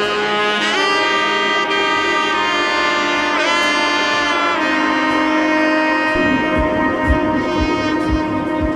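Background music: held, gliding saxophone-like melody notes, with a steady low beat coming in about six seconds in.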